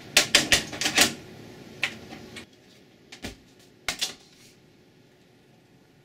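A quick run of loud, sharp clacks in the first second, then a few single knocks about two, three and four seconds in.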